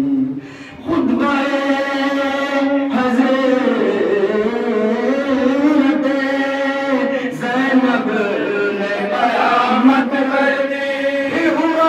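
A man's voice chanting a Muharram lament (soz/noha) without instruments, in long held melodic lines that glide between notes, after a short break in the voice right at the start.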